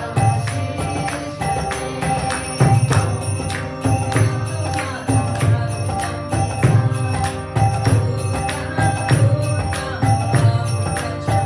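Kirtan devotional music: steady harmonium chords, a barrel hand drum keeping a regular beat, and small hand cymbals ringing along with it.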